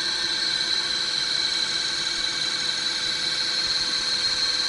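Drill press's electric motor running steadily on a variable-frequency drive, a constant high-pitched whine over a lower hum.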